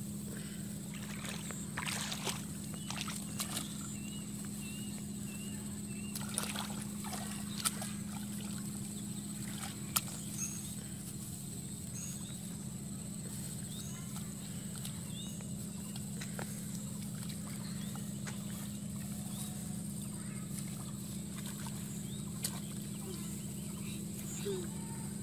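Rustling and sloshing of rice seedlings being pulled up and handled in a flooded paddy, with scattered short knocks, over a steady low hum. Faint bird chirps come and go, mostly a few seconds in.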